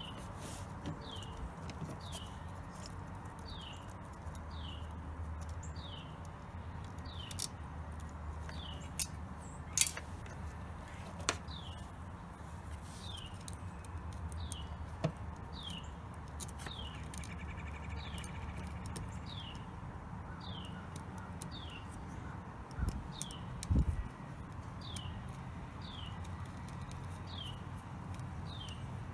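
A bird repeats a short, falling chirp about once a second, over a low steady hum. A few sharp clicks and taps come through it, the loudest about ten seconds in, from ring-terminal wires and nuts being handled on the winch solenoid's posts, with a dull thud near the end.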